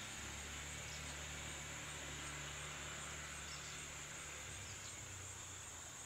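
Faint outdoor ambience: a thin, steady, high-pitched insect drone from the trees, over a low steady hum.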